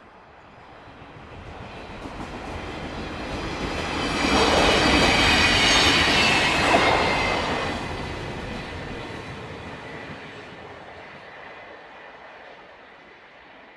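Commuter train passing by: its rumble builds steadily, peaks loud for a few seconds with high-pitched ringing tones over the noise, then fades away.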